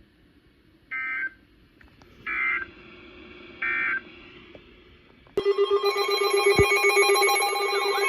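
Three short, harsh EAS/SAME data bursts about 1.3 seconds apart, the end-of-message signal closing a weather radio alert. About five seconds in, a loud electronic alert tone starts abruptly and keeps going, pulsing rapidly like a ringing phone.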